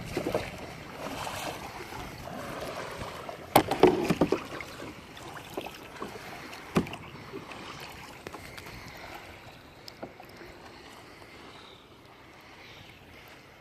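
A single kayak being paddled: the paddle dipping and splashing in the water, with a cluster of sharp knocks about three and a half to four seconds in and another near seven seconds.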